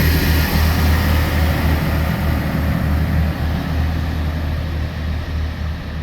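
A train's heavy diesel engine running loud and steady with a deep hum, slowly easing off toward the end.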